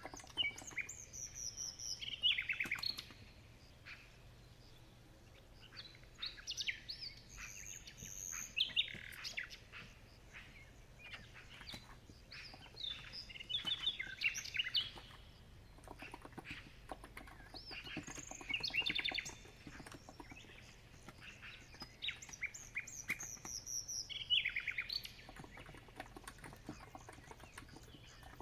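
Songbirds singing in short chirping phrases with quick falling pitch sweeps, a burst roughly every six seconds, over a continuous patter of keystrokes on a COX Empress electro-capacitive keyboard.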